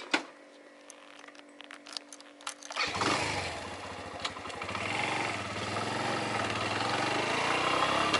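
Suzuki 125 motorcycle engine starting: a few light clicks, then about three seconds in the engine catches and runs on, its pitch rising and falling as it revs.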